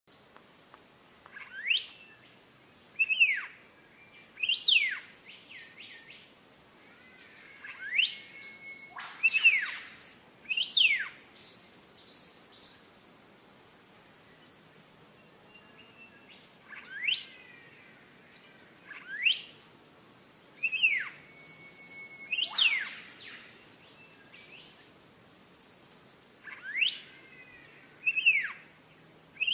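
Wild birds singing: loud, short whistled notes that sweep steeply up or down, coming every second or two, over fainter high chirping, with a quieter stretch of only faint chirps around the middle.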